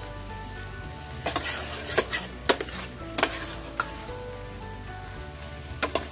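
Metal spoon stirring raw shrimp into thick masala in a stainless steel pot: the shrimp sizzle, and the spoon scrapes and clinks against the pot several times from about a second in.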